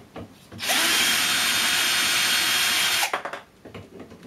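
Electric screwdriver running for about two and a half seconds, backing out a screw from the steel side frame, speeding up as it starts and stopping abruptly; a few small clicks follow.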